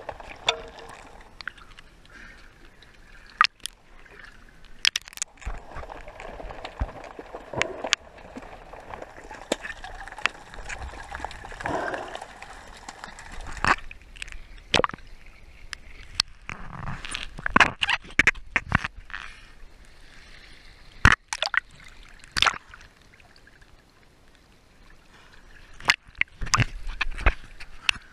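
Sea water sloshing and gurgling right at the microphone, with sharp splashes scattered through, from swimming.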